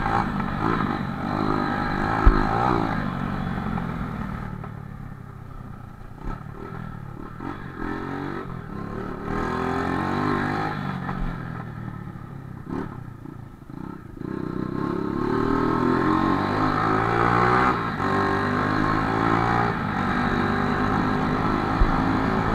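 Honda CG's single-cylinder four-stroke engine running under way, its pitch rising and falling with the throttle. It goes quieter and lower for a stretch in the middle, then picks up again. It runs without stalling after its carburettor was cleaned.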